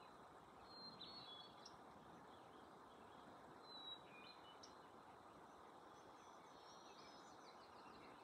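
Near silence: faint outdoor hiss with a few scattered, faint, high bird chirps and whistles.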